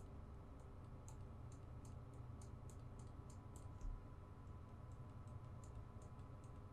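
Faint, irregular light clicking from input at the computer while painting digitally, several small clicks a second, over a low steady hum. A slightly louder low bump comes near the middle.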